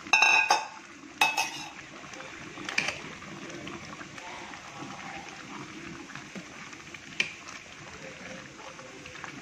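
Metal spoon stirring thick rice porridge in a steel bowl, clinking against the bowl with a bright ring: two loud clinks in the first second and a half, then a few fainter taps, over a low steady hiss.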